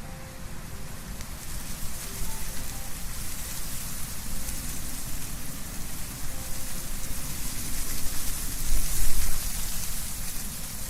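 Wind blowing through trees with leaves rustling, a steady hiss that gusts up, loudest about nine seconds in, over a low rumble of wind.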